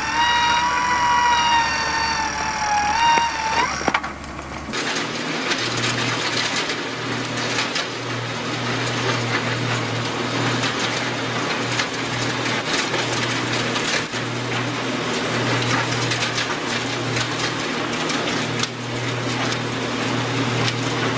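For the first few seconds, an electric winch whines under load, its pitch wavering and rising as it pulls a tree stump from the ground. It then gives way to an industrial wood shredder running with a steady low engine drone over a dense crackle of stumps and brush being chewed up.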